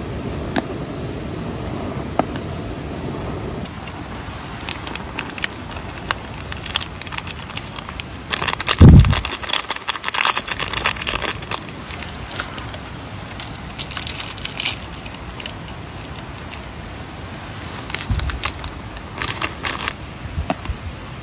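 A camp gas stove burner runs steadily under a small metal pot of boiling noodles and shuts off about four seconds in. After that, chopsticks and the metal pot are handled while the noodles are eaten: scattered light clicks and crackles, with one loud low thump about nine seconds in.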